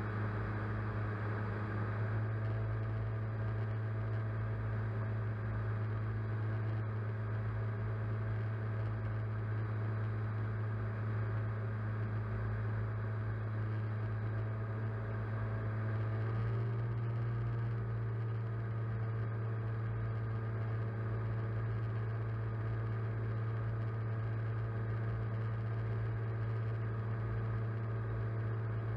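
Small drone's electric motors and propellers humming, picked up by its onboard camera: a steady low hum with higher whining tones above it. The pitch of the tones shifts about halfway through as the motors change speed.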